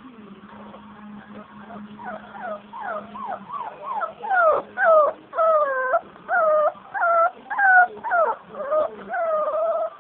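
Young Staffordshire Bull Terrier puppy whimpering: a run of short, high-pitched cries, faint at first and louder from about four seconds in, each dipping and rising in pitch, nearly two a second.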